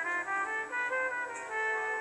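Instrumental easy-listening elevator-style music led by a brass melody of held notes with short slides between them, played over a TV set and sounding thin, with no bass.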